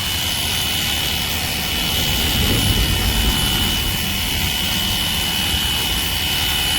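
Cordless handheld pressure washer running on a DeWalt 20V battery, its pump giving a steady high whine over the hiss of the water spray.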